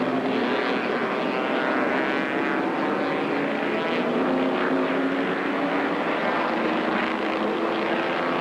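Race car engine running at speed on the track, a continuous drone that holds nearly the same pitch throughout.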